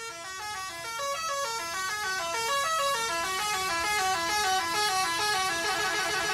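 Several horn-like melodies sounding over one another, each a run of short notes stepping up and down in pitch, growing a little louder in the first couple of seconds.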